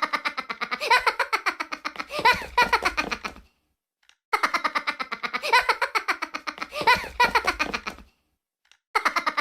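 A short clip of rapid, high-pitched giggling laughter played on a loop: each pass is a fast run of chattering laugh pulses, gliding down in pitch, lasting nearly four seconds, then breaks off into a brief silence before starting again identically. It plays twice, and starts a third time near the end.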